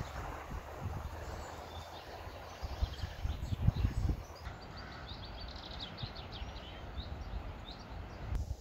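Small songbird singing in quick chirps and a rapid trill, over the low buffeting of wind on the microphone.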